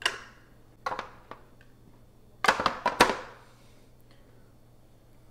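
Metal tongs and a beer can knocking and scraping as a smoked whole chicken is pulled off its can. There is a sharp knock at the start and another about a second in, then a louder clatter of several knocks about two and a half to three seconds in.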